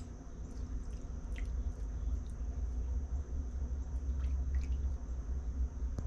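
Melted paraffin wax being poured onto grape jelly in a glass jar: faint scattered drips and small taps over a steady low hum.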